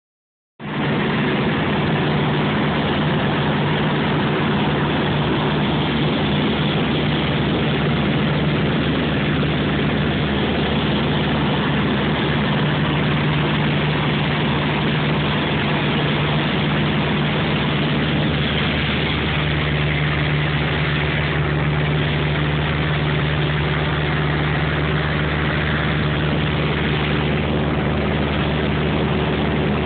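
Airliner engine noise heard inside the passenger cabin during the climb after takeoff: a steady drone with a low hum, starting about half a second in and holding even throughout.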